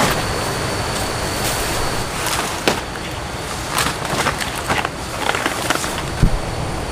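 Large fresh banana leaves rustling and scraping as they are handled and laid over bamboo poles, in a series of short sharp rustles over a steady hiss. A soft low thump comes a little after six seconds.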